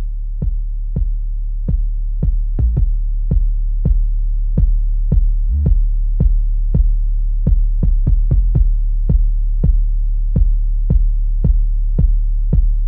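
Electronic background music: a deep, steady bass under a drum-machine beat of about two hits a second, with quicker drum fills.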